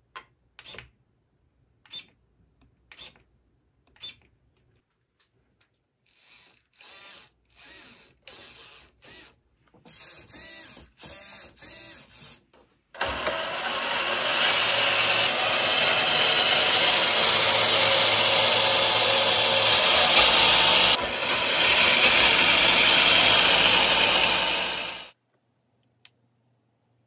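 Electric drive motor and gear drivetrain of a 1/8-scale RC crawler with its wheels spinning freely in the air. After a few sharp clicks, the motor gives about ten short throttle blips of whirring. It then runs continuously for about twelve seconds, dipping briefly once, and cuts off suddenly near the end.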